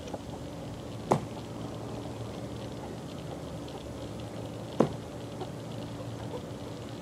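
Young chickens pecking and scratching in a pen: light scattered ticking over a steady low hum, with two sharp knocks, one about a second in and another some four seconds later.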